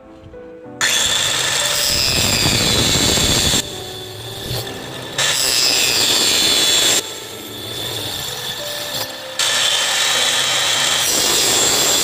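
A small bench-mounted circular saw cutting a thin strip of wood, in three cuts of about two to three seconds each. Each cut is a loud rasp with a high whine that sags in pitch as the blade bites. Background music plays in the pauses between cuts.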